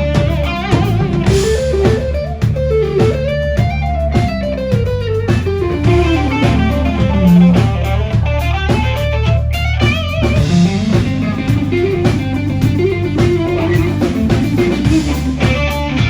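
Live blues-rock band playing loud: an electric guitar plays gliding, bending lead lines over bass and a drum kit.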